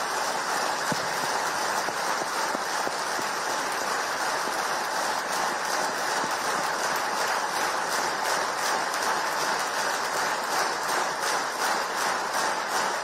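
Audience applauding: a dense, even clatter of many hands clapping, holding steady throughout.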